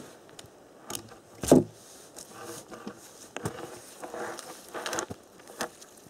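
Footsteps crunching on the forest floor, with a few sharp knocks; the loudest knock comes about one and a half seconds in.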